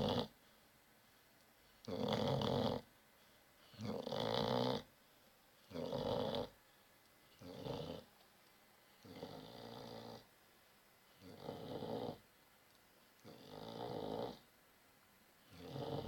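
Slow, regular snoring, one snore about every two seconds, some eight in all. The first few are louder and shorter, and the later ones softer and more drawn out.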